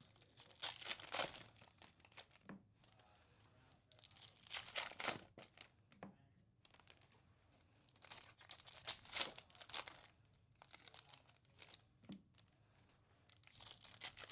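Foil wrapper of a 2024 Topps Series 2 baseball card pack crinkling and tearing as it is ripped open by hand, in four bursts a second or two long, with a few light clicks between.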